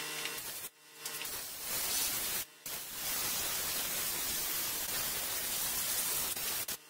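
Compressed-air blow gun hissing in long blasts at a brake drum, blowing it off after cleaning. The hiss stops briefly about a second in and again about two and a half seconds in, then runs steadily until just before the end.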